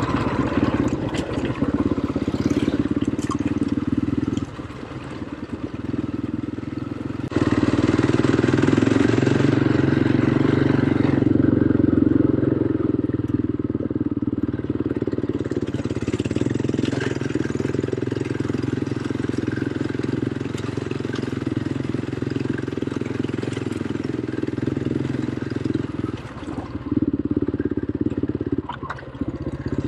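Quad bike (ATV) engine running as it is ridden. The throttle eases off about four seconds in, opens up again a few seconds later, then eases off twice near the end.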